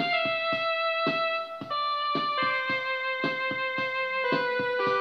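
Electronic home keyboard playing a slow melody of held notes that mostly step downward, over a steady rhythmic accompaniment beat.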